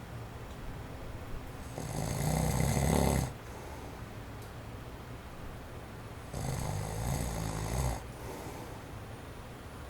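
A sleeping man snoring: two long snores, each about a second and a half, roughly four and a half seconds apart. Between them a steady faint hiss of an electric fan running on its low setting.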